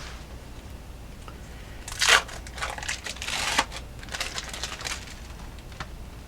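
Food-handling noises while a breakfast flatbread is assembled: a short sharp scrape about two seconds in, then a run of crinkling and rustling for a couple of seconds.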